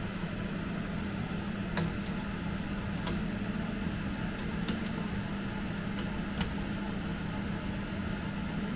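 A plastic ladle stirring longans in syrup in a stainless steel saucepan, with a few light clicks against the pot, over a steady hum of kitchen appliance noise.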